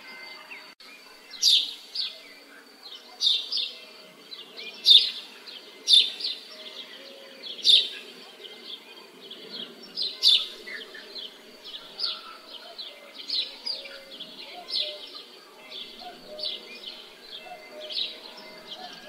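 A bird calling over and over with short, sharp chirps, about one a second, louder in the first half, over a steady low background murmur of village ambience.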